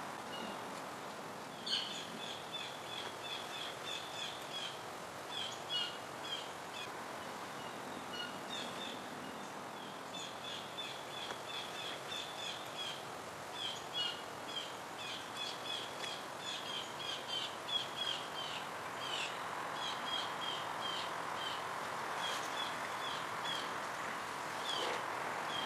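Small birds chirping in quick runs of short high notes, over a steady outdoor background hiss.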